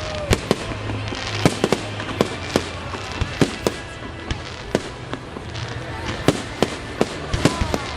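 Fireworks display: a rapid, irregular string of sharp bangs and pops, about twenty in eight seconds, over a steady background rumble.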